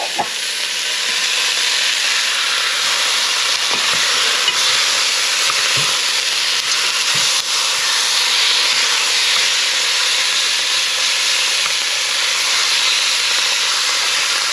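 Rabbit and grouse pieces sizzling as they fry in hot rendered pork fat in a steel pot, the sizzle growing louder over the first couple of seconds, while a wooden spoon stirs them with an occasional faint knock against the pot.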